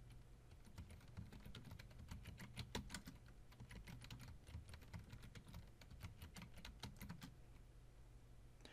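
Faint typing on a computer keyboard: quick, irregular keystrokes as a password is typed in twice, stopping about seven seconds in, over a steady low hum.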